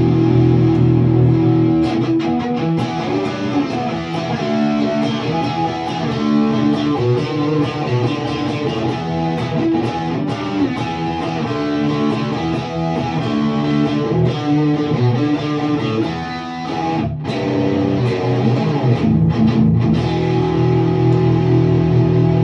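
PRS SE Custom 24 Roasted Maple electric guitar played through an amplifier: sustained chords at the start and again near the end, with quicker changing note lines in between.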